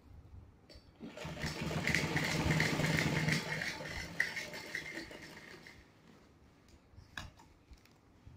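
Domestic sewing machine stitching a seam through a strip of fabric: it starts up about a second in, runs at a steady speed, then slows and stops around six seconds in. A few light clicks follow near the end.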